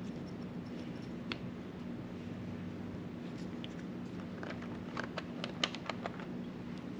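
Light clicks and taps of small baitcasting-reel parts being handled and fitted during reassembly: one about a second in, then a quick run of them from about four to six and a half seconds in, over a steady low hum.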